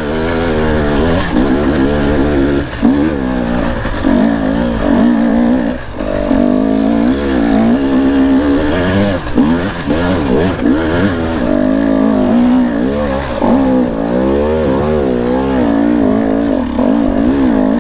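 Dirt bike engine revving hard and unevenly, its pitch rising and falling again and again as the throttle is worked up a steep, slippery hill climb.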